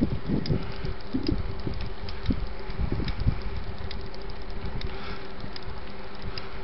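Wind rumbling in irregular gusts on a helmet-mounted camera microphone as the wearer moves along, over a steady buzzing hum and scattered light rattling ticks.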